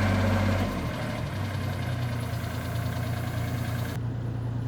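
A vehicle engine running steadily with a low hum. A hiss over it cuts off abruptly about four seconds in.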